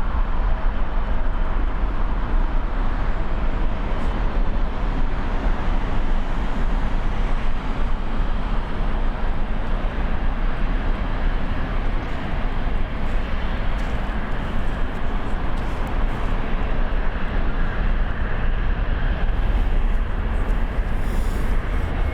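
Jet airliner engines running, a steady noise without breaks or changes.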